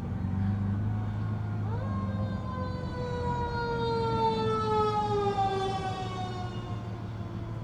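Emergency vehicle siren wailing: the tone rises sharply about two seconds in, then slowly falls over the next several seconds. A steady low drone from the car runs underneath.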